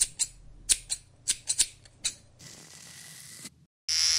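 Quick sharp snips of barber's scissors, about eight in the first two seconds, followed by a short hiss. Near the end an electric hair clipper switches on and runs with a steady buzz.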